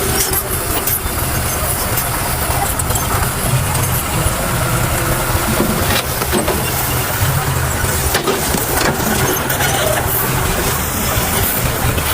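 Heavy truck engine running steadily at a low, even pitch, with scattered short knocks and clatters over it.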